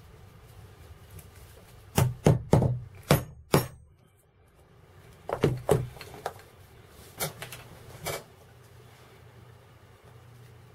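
Hard tools knocking and clicking as they are picked up and set down on a leatherworking board. There is a quick run of about five knocks a couple of seconds in, then a few more scattered knocks over the next several seconds.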